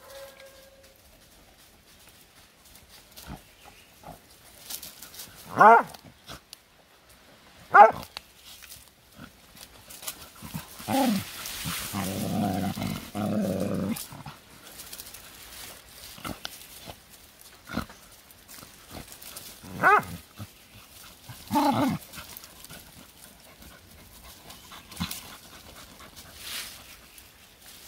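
Hunting hound yelping in short, sharp cries, about five of them spread out, with a rougher growling stretch near the middle, while it noses and paws at a hole in the leaf litter. Small scratches and twig clicks come from its digging between the cries.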